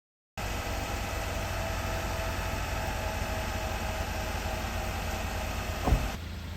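Steady low rumble of an idling car engine, heard from inside the car, with a single thump about six seconds in.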